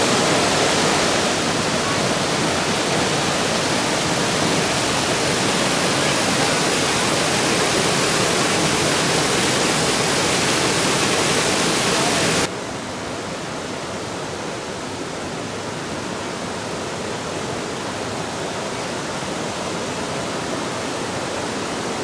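Waterfall: a steady rush of falling water. About twelve seconds in it drops suddenly to a quieter, duller rush.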